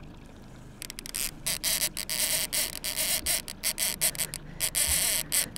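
Fishing reel ratcheting in quick, irregular bursts while a hooked salmon is played. The sound starts about a second in and stops near the end.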